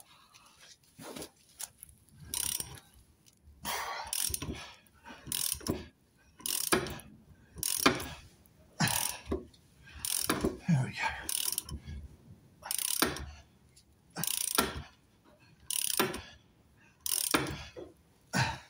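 Hand ratchet wrench clicking in repeated strokes, roughly one a second, as it turns a press that is pushing the old rear lower shock absorber bush out of its mount on a Jaguar XK8.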